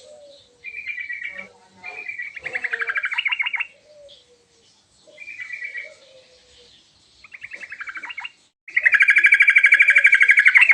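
Yellow-vented bulbul (trucukan) singing in a series of short chirping phrases, several breaking into fast rattling trills, with the longest and loudest trill near the end. Fainter, lower chirps sound in between.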